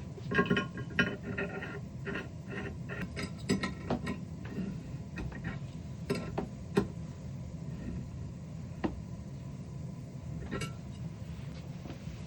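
A series of light clinks and knocks of small hard objects, metal or glass, being handled and set down, some ringing briefly. They come quickly in the first few seconds, then as a few single strikes, over a steady low hum.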